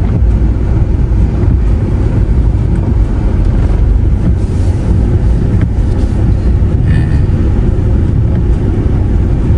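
Car driving slowly on a wet road, heard from inside the cabin: a steady low rumble of engine and tyres, with a few faint ticks.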